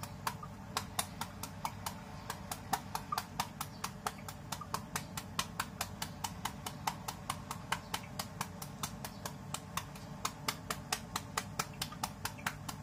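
A knife chopping rapidly and evenly into a peeled, fairly ripe papaya held in the hand, cutting it into thin strips: a steady run of short, sharp clicks, several a second.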